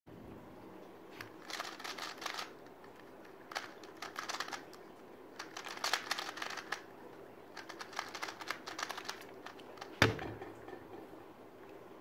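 A 2×2 speed cube being turned fast by hand: four runs of rapid plastic clicking with short pauses between them. About ten seconds in comes a single sharp slap, the hands coming down on a Speed Stacks timer to stop the solve.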